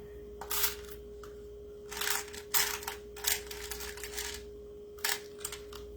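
Small sewing buttons clicking and rattling against one another as they are sorted through by hand, in several short separate bursts.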